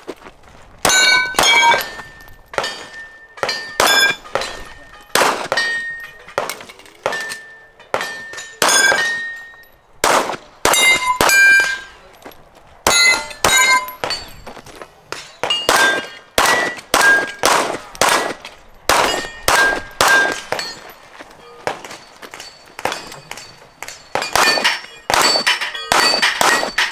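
A rapid string of gunshots at steel targets, with the steel plates clanging and ringing after the hits. The shots come one to two a second in runs, with short pauses between the runs.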